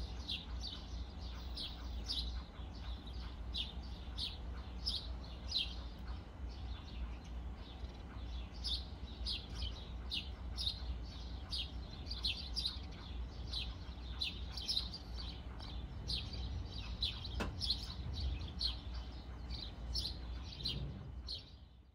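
A bird chirping over and over, short falling notes about two or three a second, over a low steady rumble, with a single click about three-quarters of the way through.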